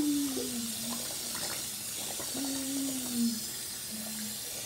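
Water splashing and dripping in a bathroom sink as a wet shark hand puppet is washed in it, with a few small clicks. Three low drawn-out tones, each falling slightly in pitch, come near the start, halfway through and near the end.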